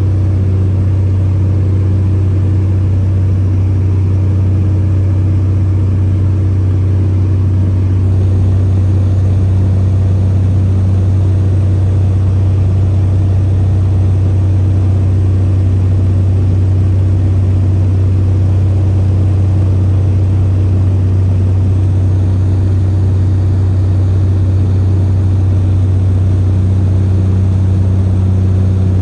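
Steady low drone of a small aircraft's engine heard from inside the cabin, running evenly at cruise.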